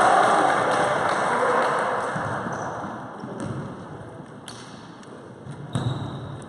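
Sounds of a basketball game in a sports hall. A wash of noise fades over the first couple of seconds. Then come a few separate thuds, such as a basketball bouncing on the wooden court, and a brief high squeak near the end.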